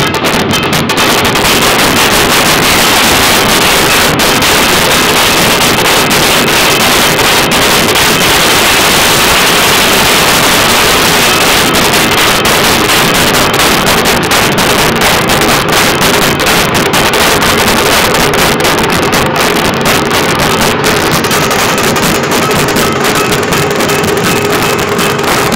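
An ensemble of large barrel-shaped dhol drums beaten with sticks in unison. The drumming is a loud, dense, continuous rhythm that never lets up.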